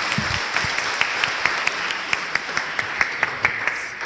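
Audience applause: many hands clapping together with sharp individual claps standing out, dying down near the end.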